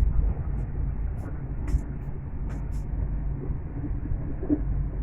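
Steady low rumble of a moving passenger train heard from inside the coach, with a few short sharp clicks.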